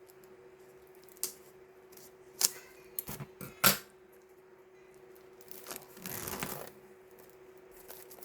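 A new notebook and its packaging being handled: several sharp taps and clicks, then a rustle of wrapping lasting about a second, about six seconds in.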